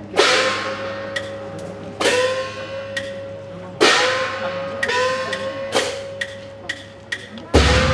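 Festival percussion: a metal gong struck about five times, one to two seconds apart, each stroke ringing on with a slight upward bend in pitch, with lighter metallic taps in between. A louder drum beat comes in near the end.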